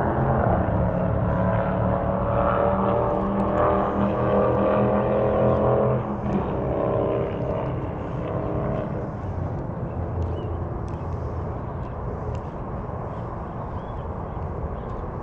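A passing vehicle's engine, a droning hum whose pitch sinks slightly, loudest for the first six seconds and then fading away.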